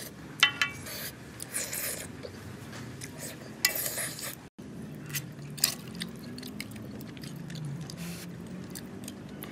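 Eating sounds: a metal spoon and chopsticks scrape and click against a steel wok of fried noodles, with chewing. There are a few sharp clicks, and the sound cuts out for a moment about halfway through.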